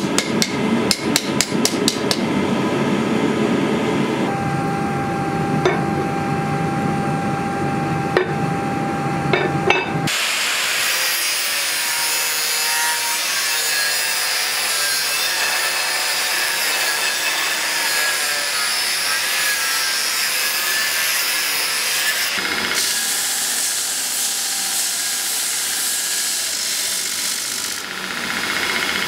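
Hand-hammer blows on red-hot steel on an anvil for the first couple of seconds. About ten seconds in, a power grinder starts grinding the steel blade with a steady, hissing rasp. Near the end it changes to a belt grinder running.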